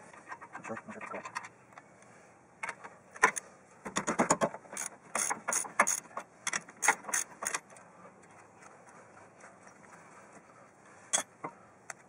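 Ratchet wrench clicking as it is worked on a brake caliper mounting bracket bolt: a run of quick metallic clicks for a few seconds, then a single clink near the end.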